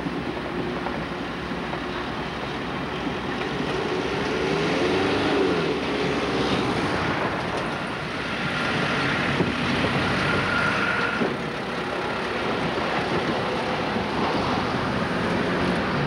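Street traffic at a level crossing: motor vehicles running past as a steady rushing noise, with a passing engine's note rising and falling about five seconds in.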